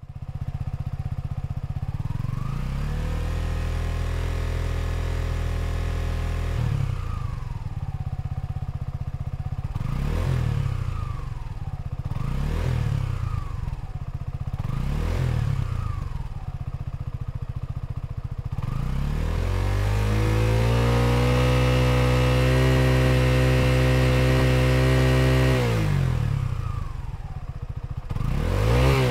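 Suzuki V-Strom 250SX's single-cylinder engine through its stock muffler, revved in neutral. It rises from idle and holds for about four seconds, then takes four quick throttle blips. It is then held at higher revs for about six seconds before dropping back, with one more blip at the very end.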